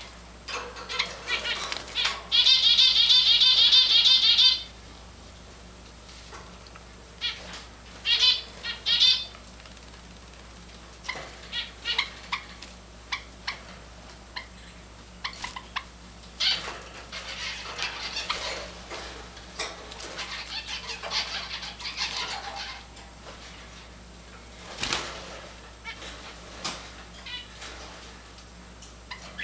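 Java sparrow calling: a loud, rapid, trilling burst a couple of seconds in that lasts about two seconds, a shorter burst around eight seconds, then scattered short chirps and clicks.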